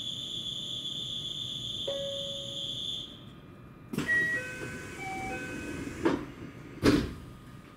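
Departure sequence of a JR West 227 series train at a station: a steady high electronic tone stops about three seconds in. Then comes a sharp click, a string of short electronic chimes at several pitches, and two heavy thumps about six and seven seconds in, the second the loudest, as the train's doors shut.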